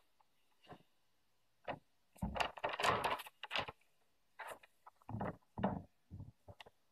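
Sheets of pad paper rustling and shuffling as they are handled and swapped, in irregular bursts.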